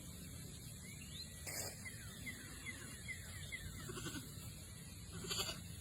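Goats bleating faintly, two short bleats near the end, with a quick string of about seven short falling chirps in the middle.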